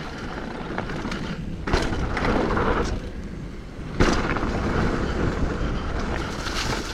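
Hardtail mountain bike rolling fast over dirt singletrack, tyres rumbling and the bike rattling, with wind on the microphone. A heavy thump about four seconds in as it lands a jump.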